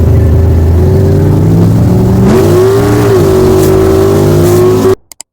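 A motor vehicle engine running steadily, its pitch rising a little and settling again just past the middle, then cutting off abruptly near the end.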